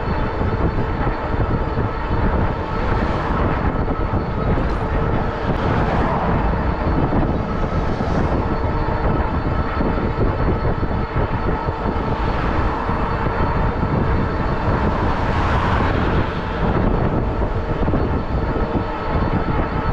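Wind noise on the microphone of a moving bicycle, a steady low rumble, with street traffic around it; passing vehicles swell up several times.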